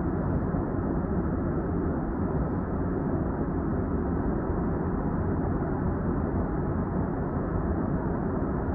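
Steady low noise of a Link light rail car, heard from inside the car, even throughout with no distinct coughs or other events.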